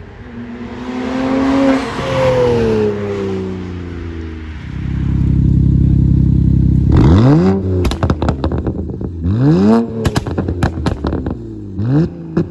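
BMW N54 twin-turbo inline-six revving through a 4-inch straight-pipe exhaust with no resonators. It rises and falls once, then holds steady at high revs for about two seconds. Three quick throttle blips follow, each trailed by pops and crackles from the exhaust.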